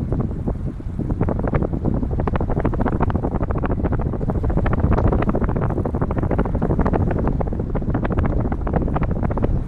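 Heavy wind buffeting on the microphone of a moving bicycle, with a dense, irregular rattle of clicks and knocks from the bike throughout.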